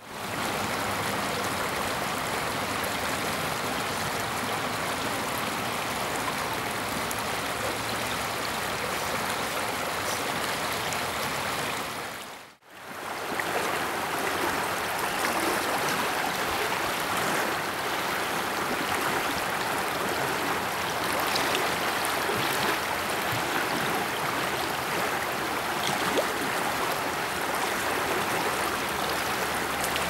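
Stream water running steadily, a constant rushing wash, with a brief fade out and back in about twelve and a half seconds in.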